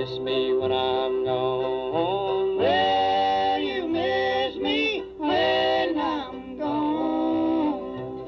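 Live bluegrass: male voices singing a chorus in close harmony at one microphone over banjo and guitar. Near the end the singing stops and the instruments carry on.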